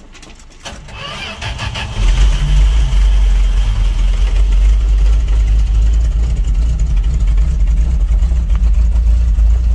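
1969 Dodge D100 pickup engine being started: it cranks briefly, catches and builds up over about a second, then runs loud and steady from about two seconds in.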